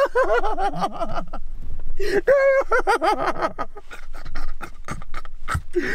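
A man laughing hard in bursts.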